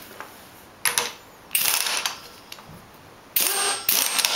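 Pneumatic impact wrench hammering on the rusty top bolt that holds the strut piston to an air spring, in three bursts: a short one about a second in, a longer one of about a second, and another near the end.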